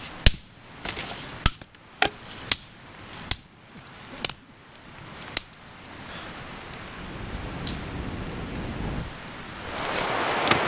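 Dry birch twigs snapped by hand one after another, about nine sharp cracks in the first five and a half seconds. After that a steady rushing noise builds and grows louder near the end.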